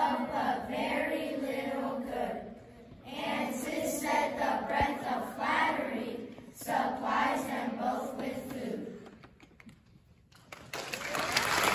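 A class of children reciting a poem together in unison, their voices rising and falling in chant-like phrases. They finish about nine seconds in, and after a short pause an audience breaks into applause near the end.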